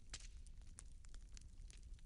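Faint wood fire crackling in a fireplace: scattered, irregular pops and snaps over a low steady rumble, the sharpest snap just at the start.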